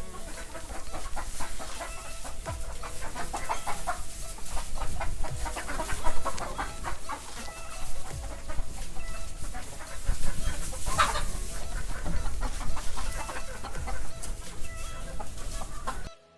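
A crowd of Sonali chickens clucking and calling over one another, with a louder squawk about eleven seconds in. The sound cuts off suddenly just before the end.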